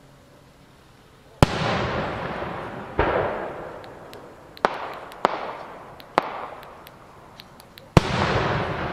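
Aerial firework shells bursting. A loud boom comes about a second and a half in and another at three seconds, then three sharper cracks follow over the next few seconds and a last loud boom near the end. Each trails off in a long echo.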